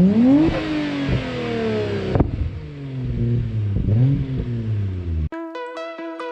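Nissan Skyline R33 GTR's RB26 twin-turbo straight-six being revved in blips, the pitch climbing and then falling away, with a sharp pop about two seconds in and another rev near four seconds. Electronic music cuts in abruptly about five seconds in.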